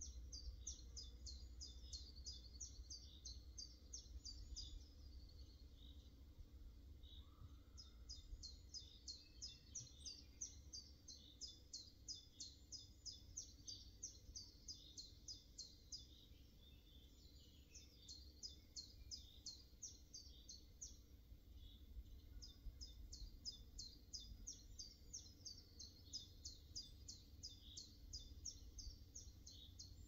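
A small songbird singing phrases of quick, high, evenly repeated notes, each phrase a few seconds long with short pauses between, over a faint low steady rumble.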